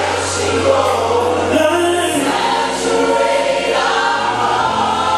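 Gospel choir singing long held notes over a steady bass line, the bass shifting to a new note about two seconds in and again near the end.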